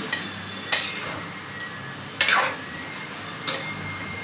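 A metal cooking spoon stirring chicken pieces in masala inside a steel kadai, clanking against the pan three times, about a second apart; the middle clank is the loudest.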